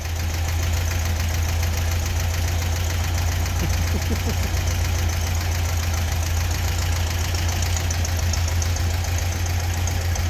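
Freshly rebuilt air-cooled 1600 VW Beetle flat-four engine running steadily, smooth and without unusual noises. It grows louder in the first second, then holds an even idle.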